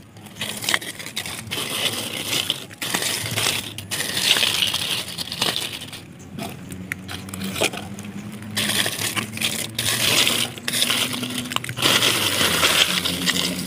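Dry fallen leaves crackling and crunching as a hand pushes them aside and rakes through crumbly soil, in irregular bursts with short pauses.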